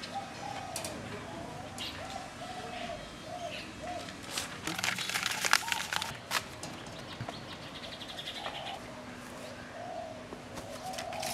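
Doves cooing, a run of soft wavering coos that repeats, pauses, and starts again near the end. A spell of clicky rustling comes about halfway through.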